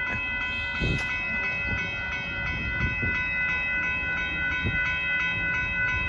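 Railroad crossing warning bells ringing in a steady repeating pattern, with the low rumble of the passing Amtrak Texas Eagle passenger train underneath.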